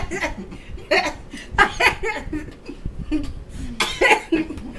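A woman laughing in several short bursts with her hand over her mouth.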